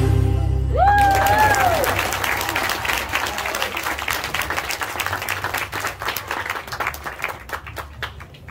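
Audience applauding as the last of the music dies away, with one high whooping cheer about a second in. The clapping thins out and fades over the following seconds.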